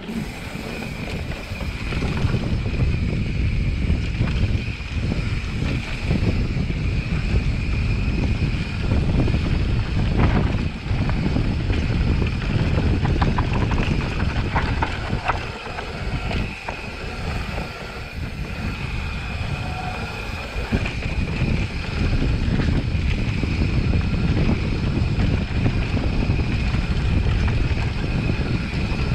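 Mountain bike rolling fast down a dirt single-track: wind buffeting the camera's microphone and the tyres rumbling over the trail, with a few rattling clicks from the bike about halfway through. A steady high whine runs under it.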